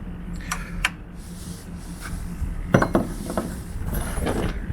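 A handful of light metallic clinks and knocks, spread out across a few seconds: metal tools and fittings being handled and set down.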